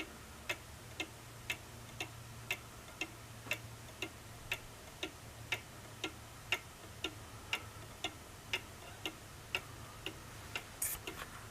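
Cuckoo clock's Swiss movement ticking steadily, about two ticks a second: the clock running again, though it still needs oiling and cleaning inside. A brief hiss near the end.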